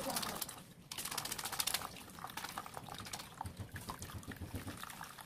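Blended melon-seed pulp rubbed and squeezed by hand through a mesh sieve, the milky liquid trickling and splashing into a plastic basin below, busiest in the first two seconds.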